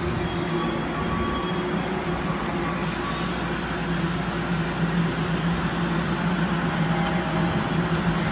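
Osaka Monorail train, a rubber-tyred straddle-beam monorail, coming to a stop at the platform and standing with a steady electrical hum. A high whine fades out about four seconds in.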